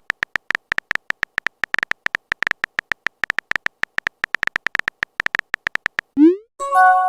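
Rapid, uneven clicks of a phone keyboard typing sound effect, several a second. About six seconds in comes a quick rising swoop and then a short bright chime of a few steady tones, a message notification sound.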